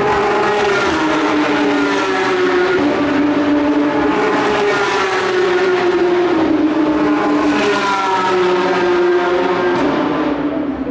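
Race car engine at high revs, a Porsche 911 GT3 Cup's flat-six, running continuously. Its pitch slides down, then rises and falls again twice as the car changes speed.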